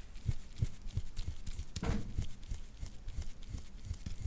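Metal soft-tissue scraping tool worked over oiled skin in quick, short strokes, a soft rhythmic rubbing at about three strokes a second.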